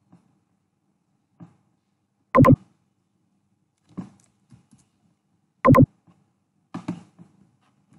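Three loud, short thumps about three seconds apart, with a few faint clicks between them.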